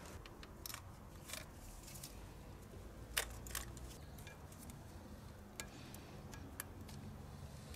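Faint, scattered clicks of plastic injector electrical connectors being worked loose with needle-nose pliers, about six small clicks over a low background hum.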